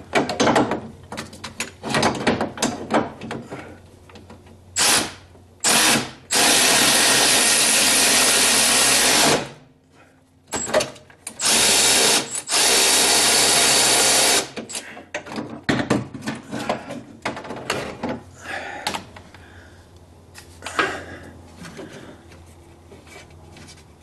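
Electric ratchet wrench running in several short bursts, the longest about three seconds, as it drives a nut on a stud. There are clicks and rattles of handling before and after.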